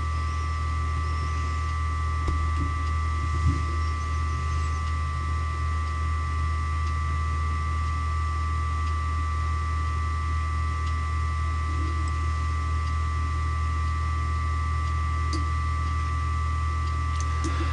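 Steady electrical hum with faint constant high tones, the background noise of the recording setup, with a couple of faint ticks a few seconds in.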